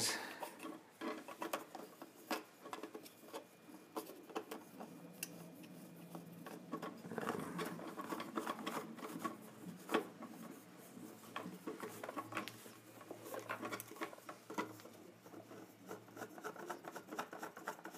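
3D-printed plastic parts being handled and fitted together by hand: scattered small clicks, taps and rubbing of plastic on plastic.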